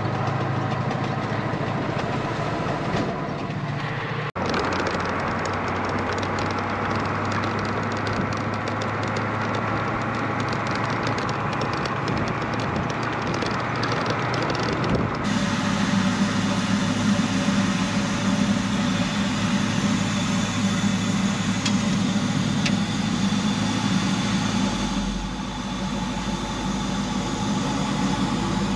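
Vehicle engine and road noise heard from inside a moving cab on a gravel farm road, a steady low drone. The sound changes abruptly about four seconds in, and again about fifteen seconds in, to a heavier, lower drone.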